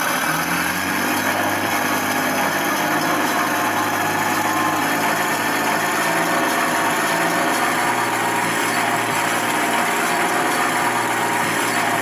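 Recorded tank-engine sound from a 1/16 RC Jagdtiger's sound unit, played through its small onboard speaker, running steadily at an idle-like pace.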